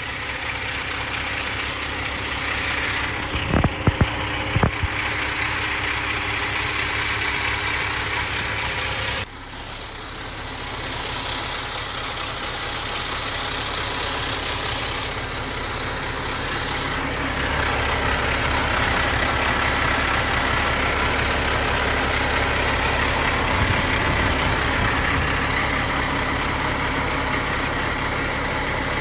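Renault 420 dCi tipper truck's diesel engine idling steadily, heard close to the engine bay. A few sharp knocks come about four seconds in. The sound drops suddenly about nine seconds in, then builds back and gets louder past the halfway point.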